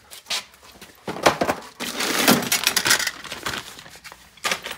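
Metal tools and odds and ends clattering and rustling as a hand rummages through a steel toolbox drawer: a quick run of clinks and knocks, busiest through the middle.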